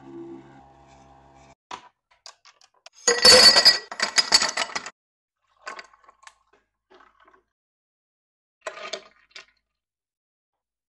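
A Nespresso capsule coffee machine's hum tailing off over the first second and a half. About three seconds in comes the loudest part: roughly two seconds of coffee pouring over ice in a glass, with ice and glass clinking. A few light clinks of glass and a metal spoon follow.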